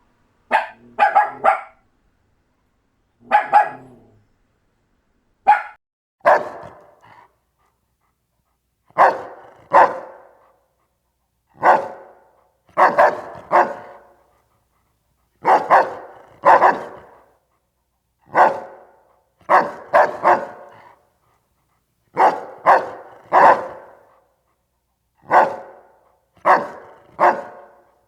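Doberman puppies barking in short barks, singly or in quick pairs and threes, every second or two, with dead silence between them.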